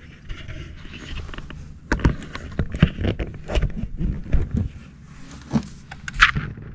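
Irregular knocks, bumps and scrapes of people moving about and handling gear in a small fishing boat. The knocks cluster through the middle, and there is a short sharp scrape near the end.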